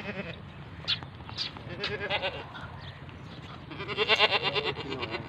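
Goat bleating: a short bleat about two seconds in, then a louder, longer wavering bleat about four seconds in.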